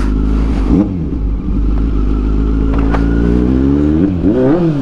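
Kawasaki Z900's inline-four engine with a Racefit aftermarket exhaust, pulling with its pitch climbing slowly as the bike accelerates, then revved up and down in quick throttle blips near the end.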